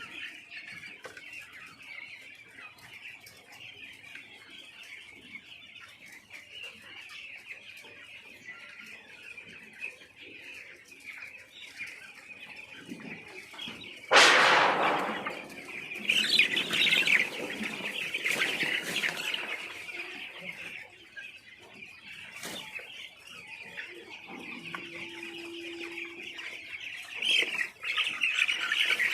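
A large flock of poultry chicks peeping continuously in a dense chorus. About halfway in there is a sudden loud burst, followed by louder peeping, which swells again near the end.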